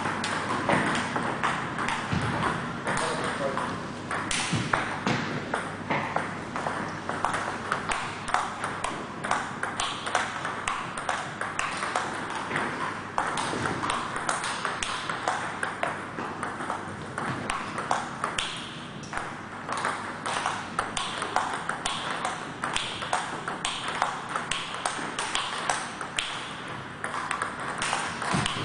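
Table tennis ball being hit back and forth in a rally, with fast, steady clicks of the ball off the bats and the table.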